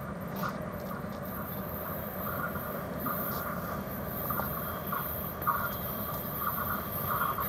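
A train approaching from a distance: a low rumble that slowly grows louder, with a higher-pitched tone coming and going above it.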